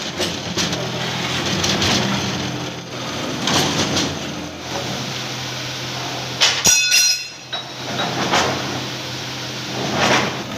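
Steady machine hum in a metalworking shop, with scraping and shuffling as a heavy steel truck chassis rail is handled. About six and a half seconds in, a sharp metal clank rings on with several high tones.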